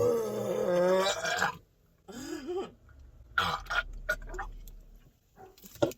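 A long, loud burp lasting about a second and a half, then a shorter, wavering burp about two seconds in and a few brief sounds after it. The burps come from gulping carbonated soda fast.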